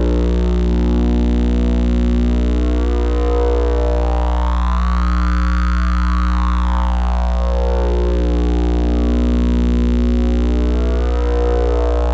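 Electronic oscillator drone of several steady tones layered over a strong low hum, the signal of a sound-and-CRT-projection system. A faint high tone sweeps up and back down once in the middle, and starts rising again at the very end.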